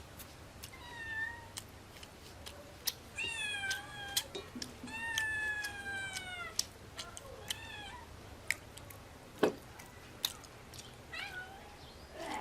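A cat meowing again and again, about five cries that mostly fall in pitch, two of them long and drawn out. Scattered sharp clicks fall between the meows, the loudest about two thirds of the way through.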